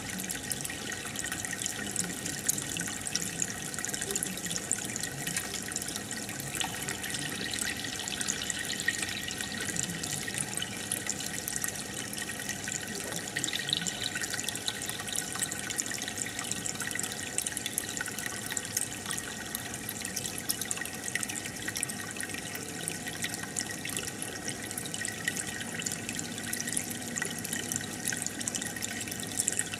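Aquarium filter outlet bubbling steadily in the tank, a constant stream of air bubbles churning the water.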